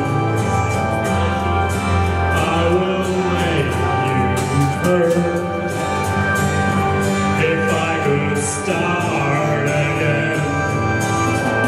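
A man singing into a handheld microphone over instrumental accompaniment, holding long notes above a steady beat.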